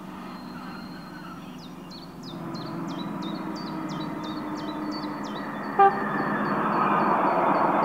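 G-scale model diesel locomotive running on garden railway track, with one very short horn toot about six seconds in, after which its running noise grows louder. A series of quick, high falling chirps, about three a second, sounds in the first half.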